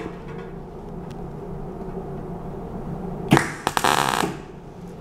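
MAG (metal active gas) welder making a single spot weld on thin steel sheet: a sharp crack as the arc strikes about three seconds in, then under a second of dense arc crackle that cuts off. It is a trial spot with the wire feed turned down, and it comes out as a closed spot.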